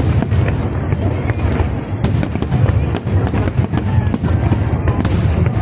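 Dense barrage of aerial fireworks: many overlapping sharp cracks and crackling bursts a second over a continuous low rumble of shell explosions.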